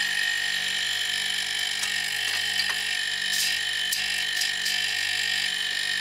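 Two old Tecumseh-built Kirby fridge compressors running together, pumping air into a tank: a steady hum with a constant high whine and hiss.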